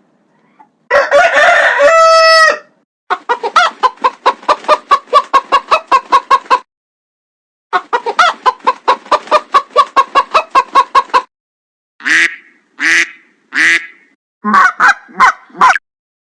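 Domestic fowl calls from sound-effect clips, cut back to back. A harsh call ends in a held pitched note, two long runs of rapid short calls follow at about six a second, and a few longer separate calls and a quick cluster come near the end.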